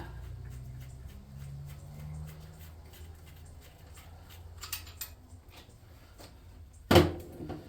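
Tools being handled on a workbench: scattered small clicks and a brief scrape over a low steady hum, then one sharp knock near the end as something is set down.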